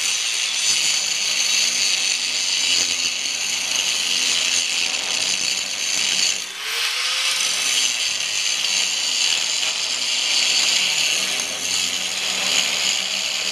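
Angle grinder with a 4.5-inch wheel grinding through steel weld on a backhoe bucket, a steady high-pitched whine and rasp. It eases off briefly about six and a half seconds in, then bites into the metal again.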